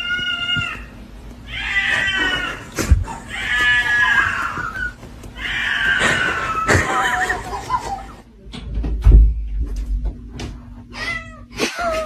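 A cat meowing loudly and insistently: four long, drawn-out meows one after another, then a stretch of clicks and a single heavy thump, and another meow beginning near the end.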